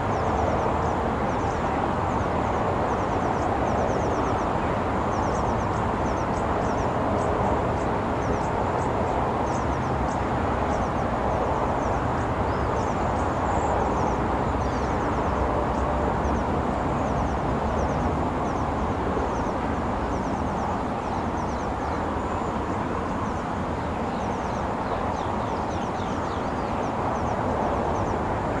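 Steady roar of distant freeway traffic, cars passing in an unbroken wash of tyre and engine noise. Short repeated high chirps sound over it throughout.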